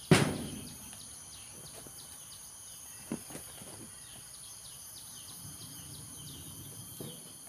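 A sudden loud thump right at the start, with lighter knocks about three seconds in and near the end, over steady high-pitched chirping in the background.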